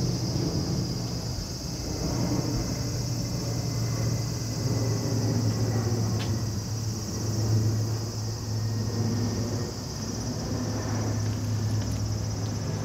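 Steady outdoor background noise: a low hum with a high, even buzz above it and a single faint click about six seconds in.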